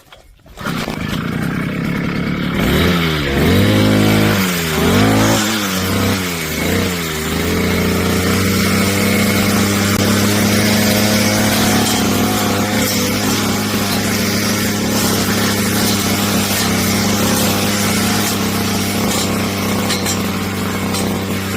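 Brush cutter engine starting up about half a second in, revved up and down several times, then running steadily at high speed.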